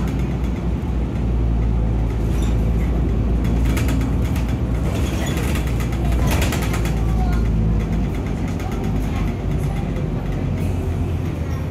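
City bus running along the street, heard from inside the passenger cabin: a steady low engine and road rumble with scattered clicks and rattles.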